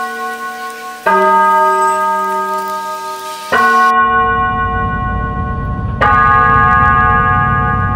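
Slow bell-like notes in the soundtrack music: a new chime is struck about every two and a half seconds, three times, each one ringing on as it fades. About four seconds in, a low rumbling drone comes in beneath them.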